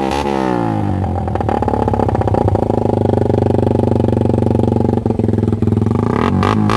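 Suzuki Raider 150 single-cylinder four-stroke engine with an open Daeng pipe and Nanban elbow, its revs falling in the first second and then running loud and steady near idle. Rhythmic music comes back near the end.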